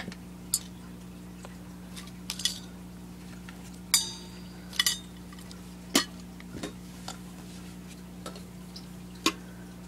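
Scattered light taps and clinks of a pierced metal candle sleeve and a small glass candle being handled and set down on a dresser, with one louder ringing clink about four seconds in. A steady low hum runs underneath.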